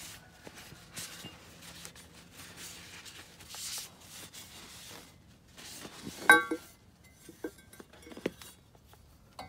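A shop rag rubbing over a steel suspension bracket in short wiping strokes, then a sharp metallic clink with a brief ring about six seconds in as the metal parts are handled, followed by a couple of fainter knocks.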